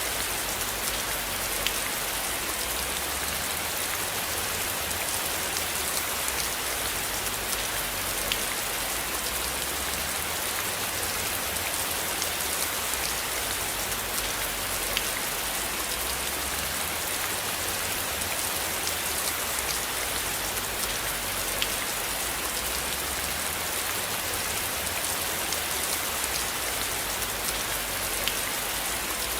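Steady rain falling, a dense even hiss with a few sharper drop ticks every several seconds and a low rumble underneath.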